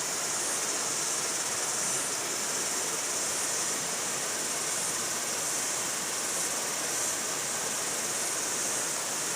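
Steady rushing of a waterfall, an even hiss with no breaks.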